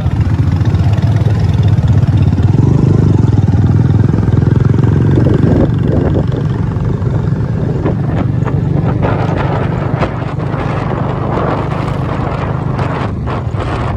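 Motorcycle running on the move, a steady low engine drone with road and wind noise. It drops a little about six seconds in, and short knocks and rustling come in over the second half.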